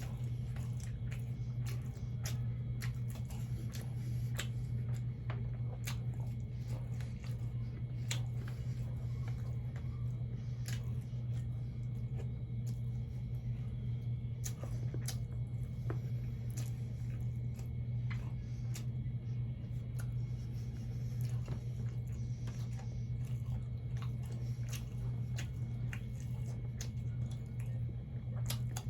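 Close-up mukbang chewing: wet mouth sounds and scattered clicks and smacks of someone eating, over a steady low hum.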